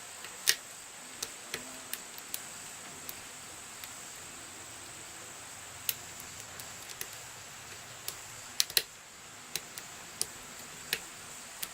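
Irregular small metallic clicks and ticks of a lock pick working the pins of a six-pin ERA euro cylinder with security pins, single-pin picking, over a steady hiss. The sharpest clicks, about half a second in and a close pair about nine seconds in, are the kind heard as pins set.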